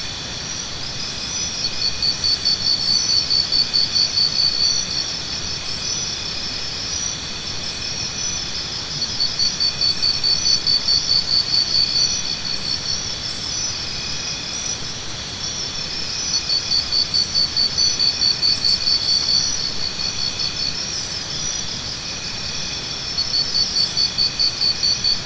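Chorus of insects: several steady high-pitched trills, with one louder pulsing chirp at about five pulses a second that comes in bouts of about three seconds, repeating four times.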